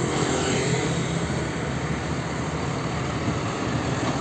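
Diesel engine of a Hino car-carrier truck running as it drives past, a steady low rumble with road noise, mixed with passing motor scooter traffic.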